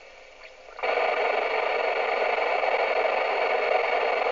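FM radio receiver's speaker hissing with static, starting suddenly about a second in and holding steady: the squelch has opened on a channel with no voice on it.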